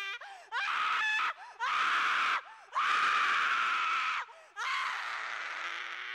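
A young man screaming in mock terror: four long, harsh screams with short breaths between them.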